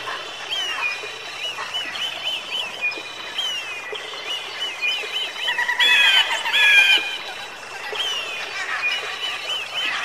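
Eagle calls: repeated short, high piping notes, several a second, with two louder, longer calls about six and seven seconds in.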